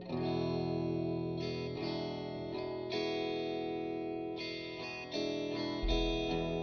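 Psychedelic rock music led by guitar, with chords ringing and changing every second or so. It starts sharply after a softer, ambient passage, and a deep bass note comes in near the end.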